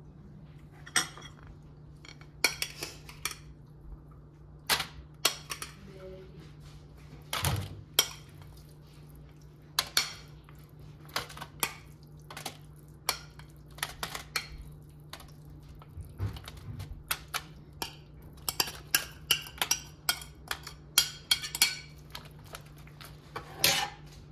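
A metal spoon taps, clinks and scrapes against a ceramic bowl and an air fryer basket as a chopped pork mixture is spooned in and spread. The sharp taps are irregular and come in clusters, over a low steady hum.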